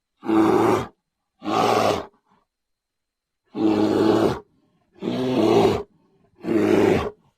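Brown bear roaring: five short, harsh roars, each under a second long, with silent gaps between them.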